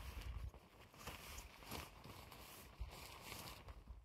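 Faint rustling and handling of tent fabric during pitching, with scattered small clicks and a low rumble on the microphone in the first half second.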